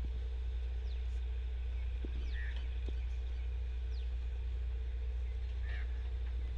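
Outdoor ambience: birds calling with a few short, faint, falling chirps over a steady low rumble, with a couple of small clicks.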